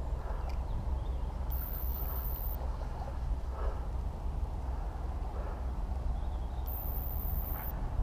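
Steady low rumble on an action camera's microphone, with two brief, very high-pitched hisses about a second long, one near the start and one near the end.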